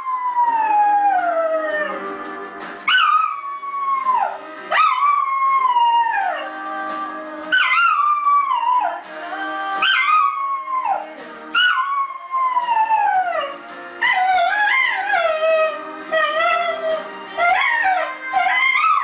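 American Cocker Spaniel howling along to music: a series of long howls, each sliding down in pitch. The howls come shorter and quicker in the last few seconds.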